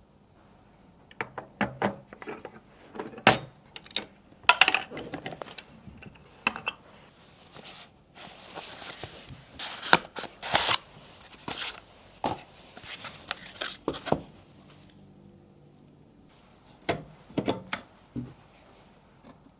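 PC parts and packaging being handled during a computer build: irregular sharp clicks and knocks, with rustling around the middle.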